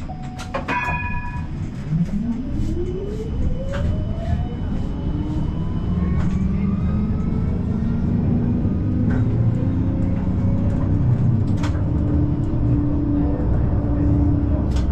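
Combino tram pulling away: a short chime about a second in, then the electric traction drive's whine rising steadily in pitch for several seconds as it accelerates, over a rumble that grows louder and then holds steady.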